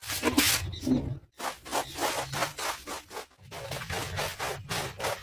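Brush scrubbing a concrete surface in quick back-and-forth strokes: a rapid run of scratchy rubs, several a second, with two brief pauses.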